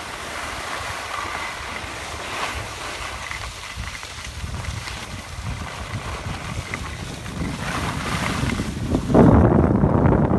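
Wind buffeting a phone microphone, mixed with the hiss of skis sliding over snow. The noise gets much louder and heavier about nine seconds in.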